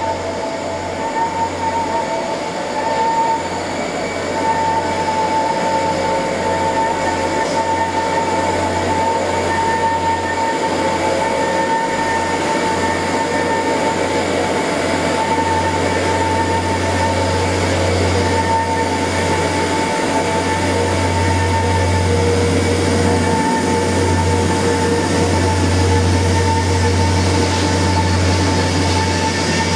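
Loram C21 rail grinder working on the track as it approaches and passes: a steady, loud grinding noise with a constant high tone, growing gradually louder as it nears, with a deep hum strengthening in the second half.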